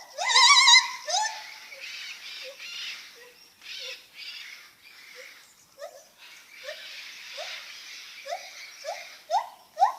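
Lar gibbon calling: a wavering trill just after the start, then a run of short rising whoops, faint at first, that come faster and louder toward the end.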